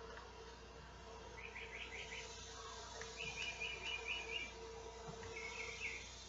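Birds chirping in quick runs of notes several times, over a steady hiss of calling male cicadas.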